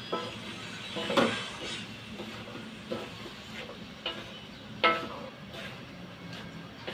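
Wooden spatula stirring and tossing cabbage and carrots in a metal wok, scraping and knocking against the pan several times, the loudest knock about five seconds in ringing briefly. The vegetables sizzle steadily as they fry.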